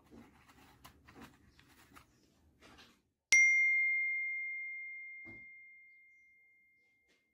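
Faint small clicks and rustles of steel fishing hooks being handled in an open cardboard box, then about three seconds in a single loud bell-like ding on one clear high tone that fades away slowly over about four seconds.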